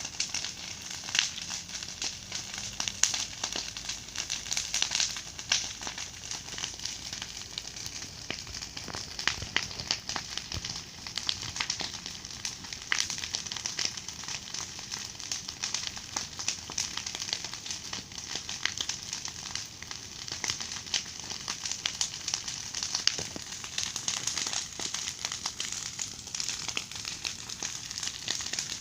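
Large bonfire of a big heaped pile burning fiercely: a steady hiss of flames with constant sharp crackles and pops.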